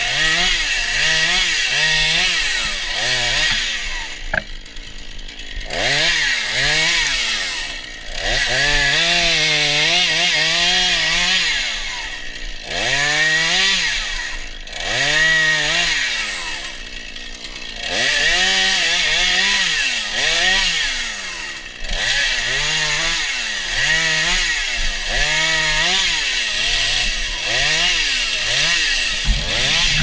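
Petrol chainsaw revved up and down over and over while cutting through brush and small branches, its engine pitch climbing under throttle and falling back in short dips toward idle between cuts.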